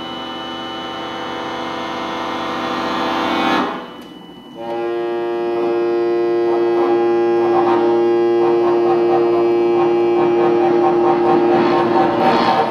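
Chromatic button accordion holding a sustained chord that swells louder and then cuts off about three and a half seconds in. After a brief pause, a new chord starts and is held steadily, with a flickering texture in the upper notes, until it breaks off near the end.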